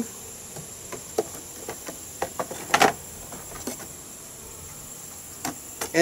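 Wooden hive frames clacking and knocking against the wooden nuc box as they are lifted and handled, with several separate sharp knocks, the loudest a little before the middle. A steady high-pitched insect drone continues underneath.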